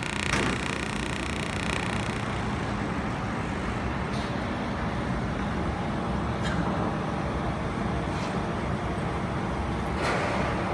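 Laser welding machine running with a steady hum and hiss, a crackle of welding in the first couple of seconds, and a few sharp clicks about every two seconds after.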